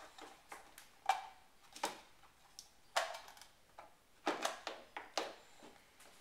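Hard plastic toy kitchen pieces knocking and clicking as a toy pot is handled against the stovetop and its knobs: several irregular sharp knocks.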